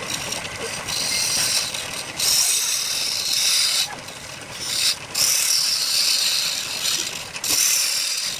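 Woodturning on a lathe: a tool scraping and cutting a spinning workpiece, a gritty hiss that comes in several passes of one to three seconds with short breaks between them.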